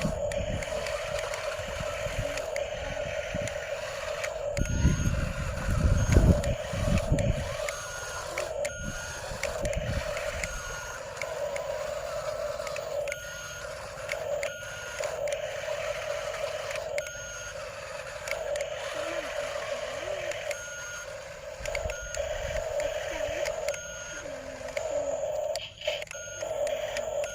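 Heavy earthmoving machinery running steadily with a constant whine, and a burst of heavy low rumbling about five to seven seconds in.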